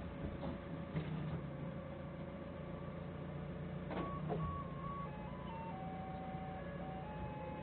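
Doosan 4.5-ton forklift engine running steadily, with a couple of clunks from the mast and forks. About halfway in, a simple electronic tune of single beeping notes starts up, like a reversing melody.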